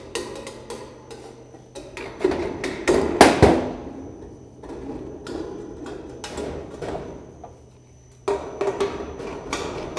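Thin Colorbond sheet-steel barge capping flashing being worked by hand and with pliers to tidy its end: scattered knocks, clatters and flexing of the sheet metal, loudest in a cluster about three seconds in.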